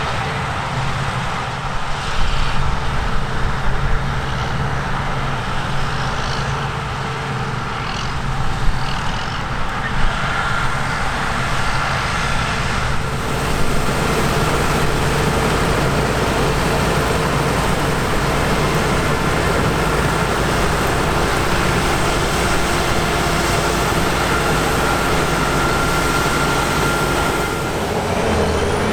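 Diesel engines of harvest machinery (combine harvesters and tractors) running steadily under load. About halfway through the sound grows fuller and a thin, steady whine joins it.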